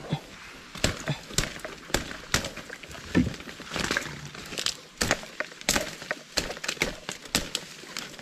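Mangrove twigs and leaves crackling and snapping as hands push through and handle them: many short, sharp clicks at an uneven pace.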